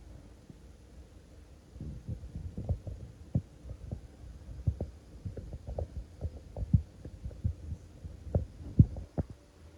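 Irregular soft, low knocks and thuds of toy animal figures being handled and set down on a surface.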